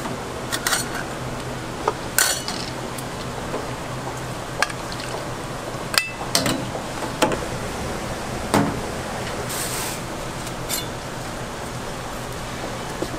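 Kitchen utensils clinking against stainless steel trays and a bowl: a steel ladle and wooden fish-cake skewers knocking and scraping in a tray of broth. About ten sharp, scattered clinks sound over a steady background hum.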